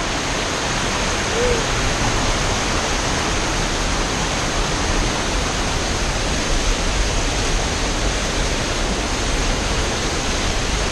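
Waterfall pouring steadily: a loud, even rush of falling water with no breaks.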